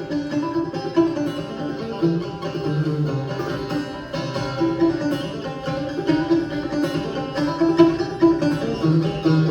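Clawhammer banjo playing an old-time instrumental break, a quick steady run of plucked notes with no singing.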